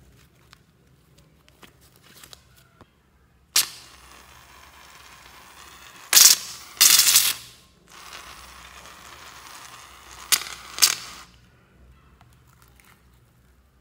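Aerosol can of shaving foam spraying onto glitter: a steady hiss that starts suddenly partway in, broken by several loud spitting spurts in the middle and two more later, then stops. Before it, faint sticky clicks of slime being stretched by hand.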